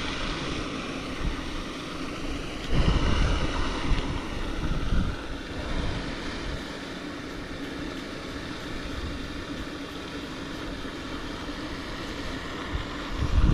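Wind rumbling on the microphone over a steady low hum, with a louder surge of rumble about three seconds in.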